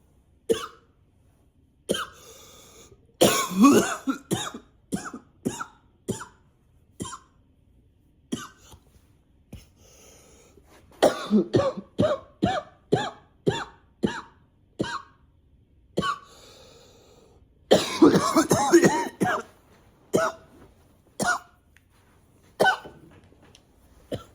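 A man coughing persistently: single coughs spaced out, broken by three longer fits of rapid coughs about three, eleven and eighteen seconds in, with breaths drawn in before the fits.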